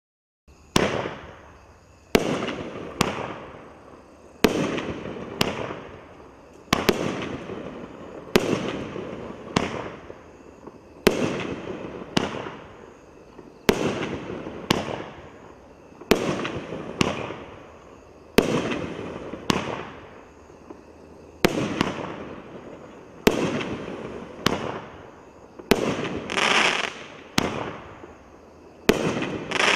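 A 500-gram multi-shot aerial fireworks cake firing shot after shot, about every two seconds. Each launch thump is followed by the sharp report of its shell bursting.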